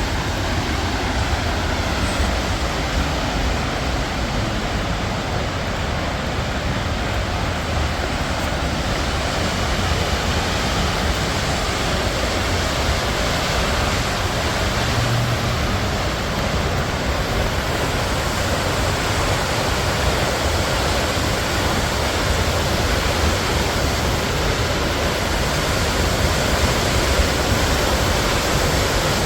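Steady rushing of a large waterfall, Dry Falls, heard close by as an unbroken wash of water noise.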